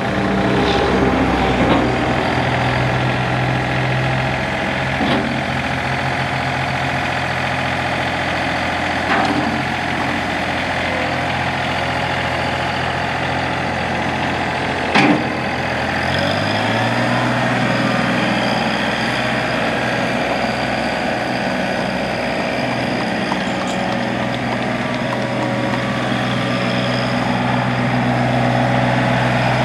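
John Deere 3025E compact tractor's three-cylinder Yanmar diesel running steadily as the tractor is driven, with a few brief knocks, the loudest about halfway through. Just after that the engine speeds up and holds at the higher speed.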